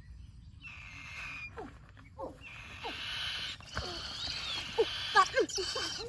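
Young birds of prey giving a series of short, high, falling calls. The calls come closer together and louder toward the end, over a steady high hiss.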